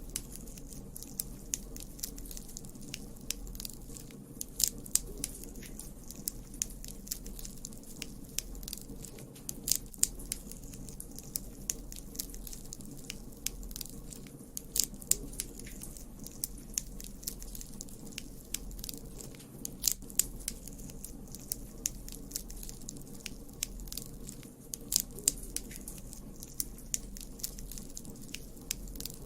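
Campfire crackling: irregular sharp pops and snaps, a few much louder than the rest, over a low steady rumble.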